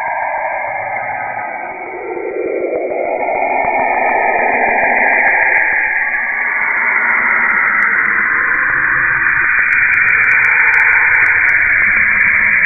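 Spacecraft radio-wave recording of a planet turned into audio: hissing static with a whooshing band that sweeps down in pitch about two seconds in and rises again, with faint crackles near the end.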